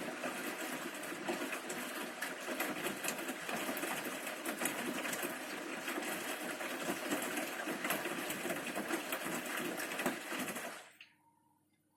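Bosch Series 6 washing machine in its main wash, with a steady rush of water and churning in the drum, dotted with small clicks. It cuts off abruptly about eleven seconds in.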